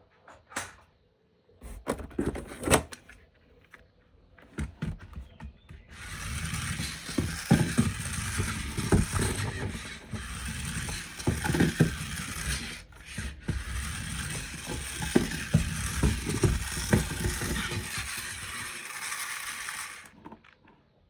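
Plastic toy parts being handled: scattered clicks and clatter. About six seconds in, a steady hiss starts with irregular knocks underneath and stops about a second before the end.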